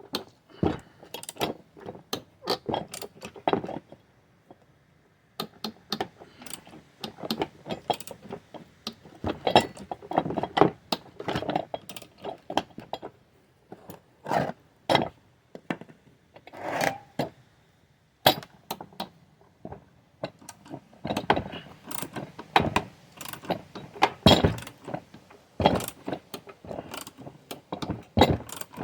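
Irregular metallic clinks, taps and knocks of hand tools and metal parts being handled, coming in clusters with short pauses; one knock about two-thirds of the way in rings briefly.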